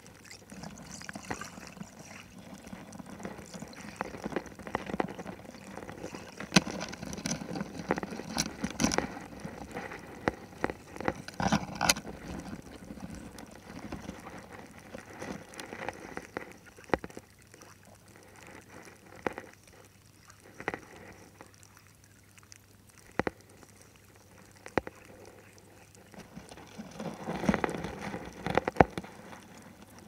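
Underwater sound heard through an action camera's waterproof housing: water moving, with irregular sharp clicks and crackles that are busiest in the first half and again near the end.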